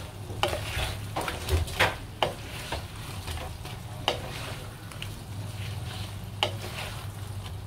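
Wooden spatula stirring and turning pieces of fried barramundi through bubbling oyster sauce in a non-stick wok, over a steady sizzle. The spatula knocks sharply against the pan several times.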